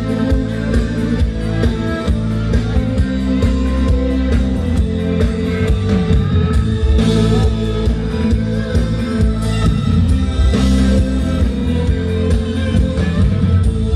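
Thai rock band playing live through a PA: electric guitars and a drum kit over a steady bass. The audio is loud and continuous, heard from out in the crowd.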